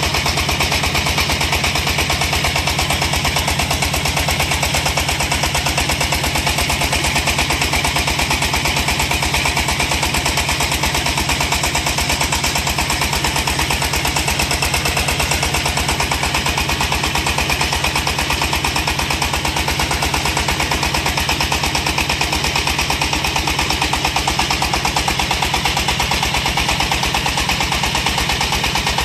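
Single-cylinder diesel engine of a small portable water well drilling rig running steadily, a rapid, even chugging knock, with drilling mud circulating.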